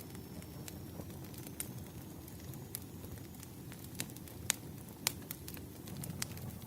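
Wood fire crackling: irregular sharp pops and snaps, a few louder ones a little past the middle, over a low steady rustle of the burning logs.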